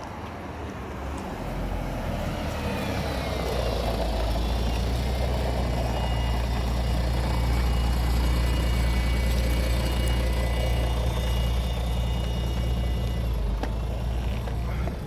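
Enertion Raptor 2 electric skateboard riding: the direct-drive hub motors give a whine that rises in pitch as the board speeds up over the first few seconds, then holds steady, under a loud low rumble.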